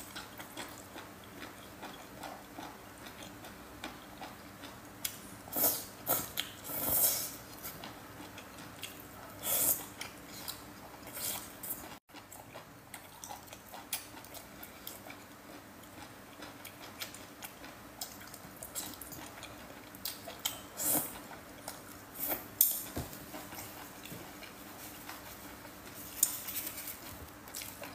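Close-up mouth sounds of someone eating spicy octopus tentacles: slurping and chewing in irregular bursts, with quieter stretches between.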